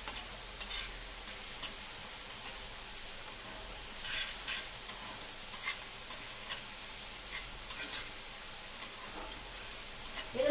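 Chicken pieces, onion and capsicum sizzling in a wok while a slotted metal spatula stirs and scrapes through them, with scattered sharper clicks of the spatula against the pan.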